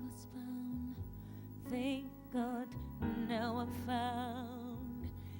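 Gospel song: a solo voice holding long, wavering notes without clear words over a steady instrumental backing.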